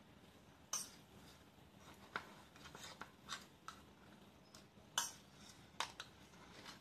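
A spoon scraping and tapping against a metal idli plate as steamed idlis are prised out. The sound is a soft, irregular run of short scrapes and clicks, with sharper taps near the start and twice more after about five seconds.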